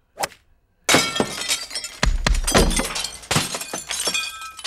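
Objects being smashed, glass shattering again and again with shards clattering and ringing. There is a heavy thud about two seconds in.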